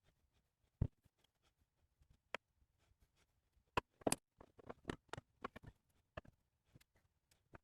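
Scattered light clicks and taps of small hand work at a bench, a few sharp knocks among them, with a short cluster of louder taps about four seconds in.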